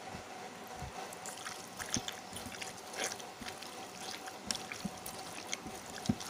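Wet, irregular squelching of a bare hand kneading thinly sliced beef through a blended spice marinade in a bowl.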